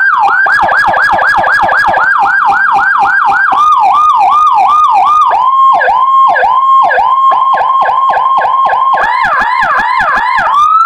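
Electronic police-escort siren in the Whelen HHS3200 style, sounding through a TOA CJB-150E horn speaker. It opens with rapid falling sweeps, about four a second, drops to a lower sweep a few seconds in, then changes to a steadier tone with quick dips. A second, higher sweeping tone joins near the end, and the sound closes on a rising tone.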